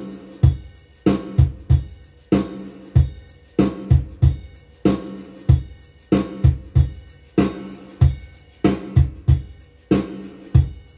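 Check-sound music track playing back through a digital mixer, built on a repeating kick-and-snare drum beat, with the mixer's channel EQ switched in.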